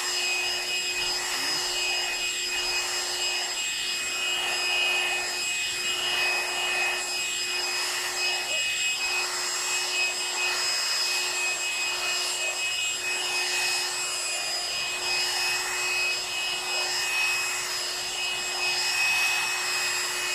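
Hair dryer running steadily on its low setting: a constant rush of blown air with a steady high motor whine.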